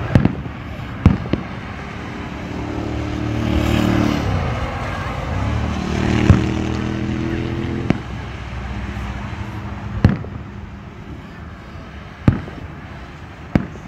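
Aerial firework shells bursting at a distance: a string of about seven sharp bangs at irregular intervals. Through the middle a steady droning hum swells and fades under them.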